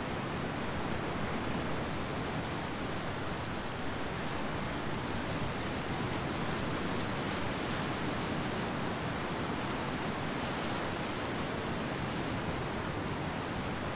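Ocean surf washing onto the beach, a steady rushing noise with no distinct breaks.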